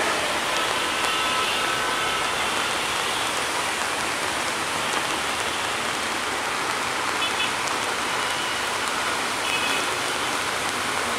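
Steady rain falling: an even hiss throughout, with a few brief, faint high-pitched tones about a second in, midway and near the end.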